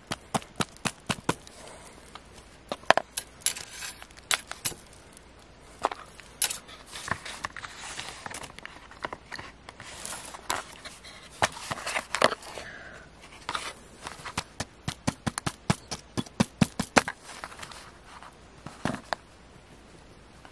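A small digging pick chipping and scraping at a water-softened plaster dig block, making rapid irregular clicks and short scrapes as crumbs break off.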